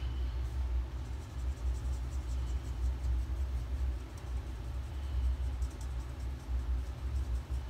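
A steady low rumble of household machinery running in the room, wavering slightly in level.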